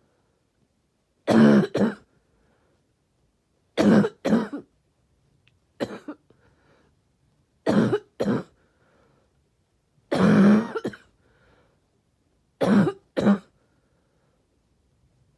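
A person's barky cough: a series of coughing fits, most of them two quick voiced coughs in a row, repeating about every two to three seconds. The fit a little over halfway through is fainter.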